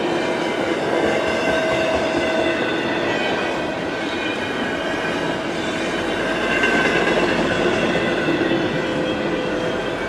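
Double-stack intermodal well cars of a freight train rolling past at close range, a steady rumble of steel wheels on rail. Several faint, steady whining tones ride over the rumble.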